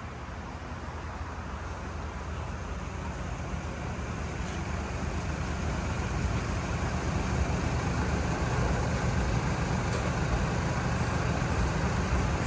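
A motor vehicle running steadily with road noise, a low rumble that grows slowly louder.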